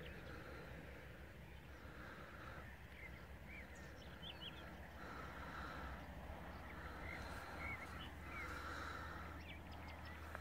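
Faint lakeside birdsong: short chirps scattered throughout, with longer calls that come and go every few seconds over a low steady rumble.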